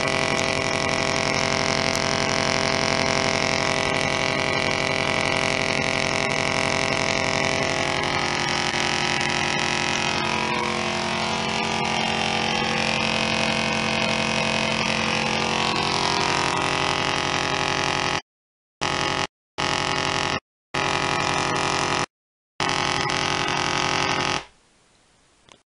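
Half-bridge solid state Tesla coil arcing, a loud steady buzz whose pitch is set by the interrupter. After a long continuous run it is switched on and off in four short bursts, then stops about a second before the end.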